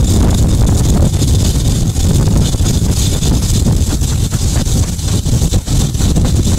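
Train running, a steady low rumble with a high hiss, and wind buffeting the microphone.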